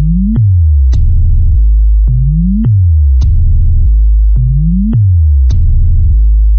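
Electronic bass test music: heavy, very loud deep synth bass with falling and rising bass sweeps and sharp drum hits, repeating a pattern about every second and a half.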